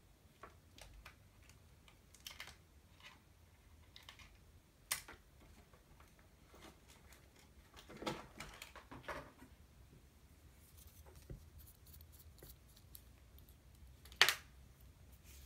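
Faint, scattered scratching and clicking of a blade working through the taped seam of a cardboard box to open it, with a small cluster of scrapes partway through and a sharp click near the end.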